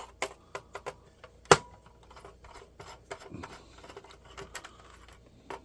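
Scattered clicks and light clatter of laptop parts being handled and pried apart by hand, with one sharp knock about one and a half seconds in that rings briefly.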